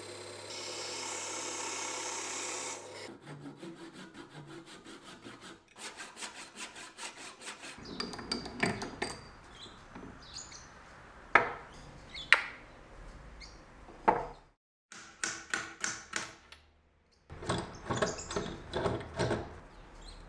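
Woodworking lathe work on a pale hardwood blank: a steady hum and a noisy cutting stretch near the start, then runs of rapid ticks and scattered sharp knocks and clicks of wood and tools being handled at the lathe, with a brief gap in the middle.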